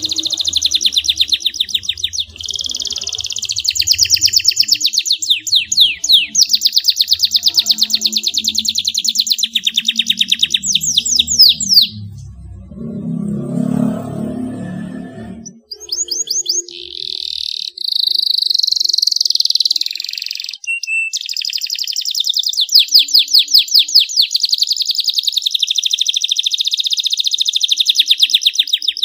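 Domestic canary singing a long song of fast trills and rapid repeated notes. The song breaks off for a few seconds about halfway through while a low noise is heard, then resumes.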